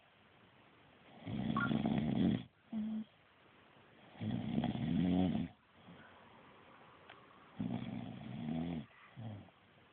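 A sleeping person snoring: three long snores about three seconds apart, each lasting over a second and followed by a short, steady-pitched note.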